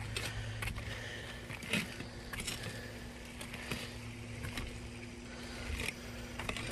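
Footsteps on a concrete tile roof, with short irregular knocks and clacks as loose tiles shift underfoot, over a steady hiss and faint low hum.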